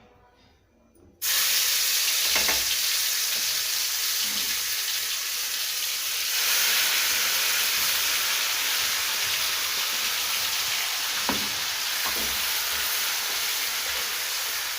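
Cumin seeds sizzling loudly in hot oil in a kadhai, starting suddenly about a second in and holding steady, with a couple of soft knocks.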